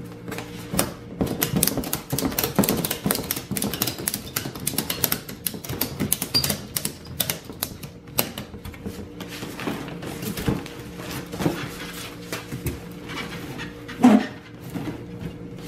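Ratchet strap buckle being worked to cinch a strap tight around a cardboard box, giving rapid runs of clicking for the first several seconds, then sparser clicks and handling of the box. A single loud knock comes near the end.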